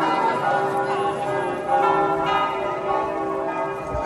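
Church bells ringing, with several long tones at different pitches overlapping.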